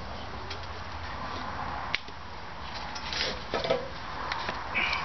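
Polythene sheeting rustling and crinkling as it is cut with a blade and handled, with a few sharp clicks about two seconds in and again around three and a half seconds.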